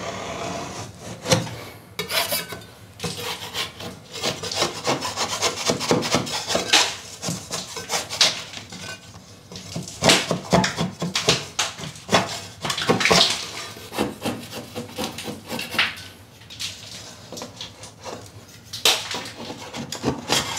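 Metal scraper scraping loose filler and paint off a plasterboard ceiling, in many short, irregular strokes. The filler has come loose where the paper joint tape has lifted off the board.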